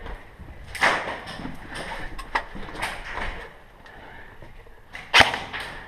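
Scattered single shots from airsoft guns: sharp snapping cracks, about four or five, the loudest one about five seconds in, over low shuffling movement.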